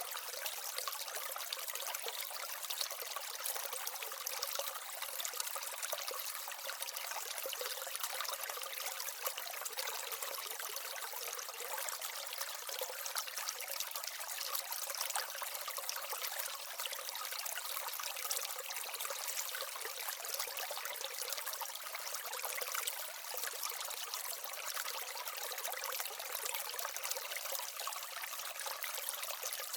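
Small aquaterrarium waterfall and stream: water trickling and splashing steadily.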